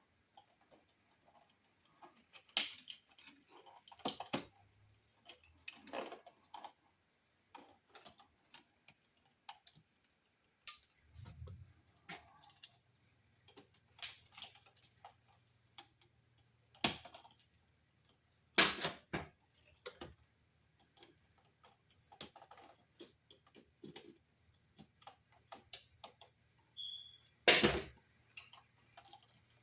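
Irregular small clicks and taps of hand tools on a wall receptacle's terminal screw and copper wire, with a few louder sharp knocks among them, as the wire loop is set under the screw head and the screw tightened.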